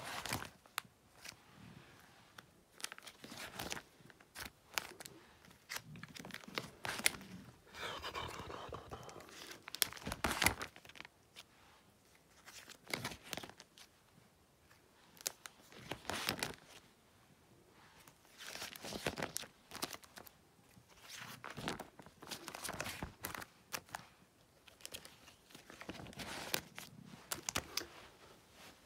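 Clear plastic card-binder sleeve pages crinkling and rustling as they are handled and turned, in short irregular rustles with brief pauses between.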